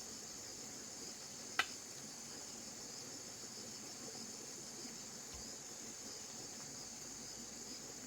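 Crickets chirping steadily in the background, with one short click about a second and a half in.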